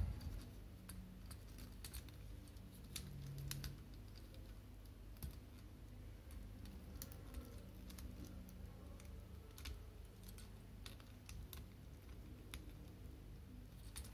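Faint, irregular clicks and taps of a plastic Transformers toy's parts being handled and moved into place during transformation.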